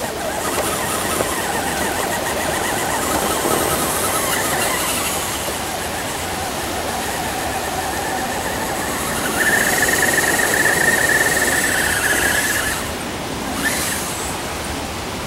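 Radio-controlled rock crawler truck's electric motor and geartrain whining as it crawls up a rocky dirt slope, with a higher, steadier whine for about three seconds past the middle. Wind noise on the microphone throughout.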